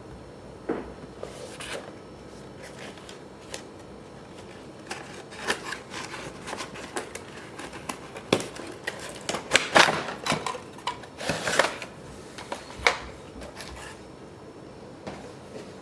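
Toy remote-control car packaging being handled: scattered clicks, taps and short rustles of cardboard and plastic, busiest in the middle.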